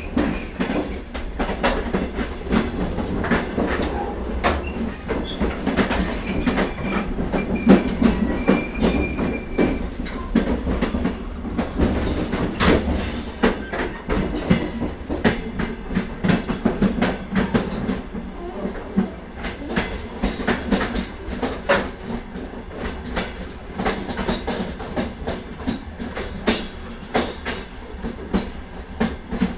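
Moving passenger train: wheels clattering over the rail joints in irregular clicks over a steady running rumble.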